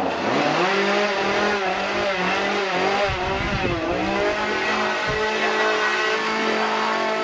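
Chainsaw engine running steadily, its pitch wavering up and down as the throttle is blipped.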